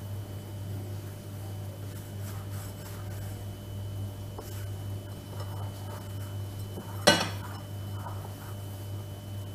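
Hands kneading soft cocoa cake dough, with faint rubbing over a steady low hum. About seven seconds in, a single sharp clink of a utensil against a dish rings out briefly.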